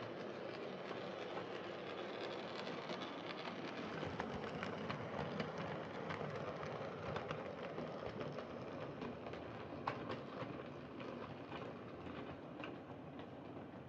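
Freshly serviced Hornby Class 14xx OO gauge model tank engine running along the track: a steady motor whirr with light clicking of wheels over rail joints, and one sharper click about ten seconds in.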